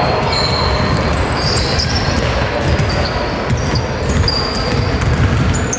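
A basketball being dribbled on a hardwood gym floor, with sneakers squeaking in short high chirps as players run and cut.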